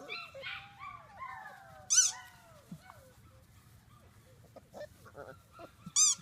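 Labrador puppies whining and yelping: a string of short falling whimpers, with a sharp high yelp about two seconds in. Near the end a fast run of high squeaky cries starts, about three a second.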